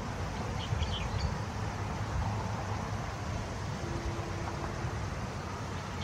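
Steady low background rumble, like distant city traffic, with a few faint, short high bird chirps about a second in.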